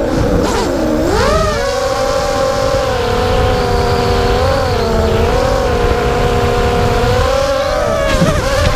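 Racing quadcopter's brushless motors (Xhover XH2204 2300KV) whining in flight, with low wind rumble. The pitch dips sharply and climbs back within the first second and a half, then holds fairly steady with small wobbles and dips again near the end.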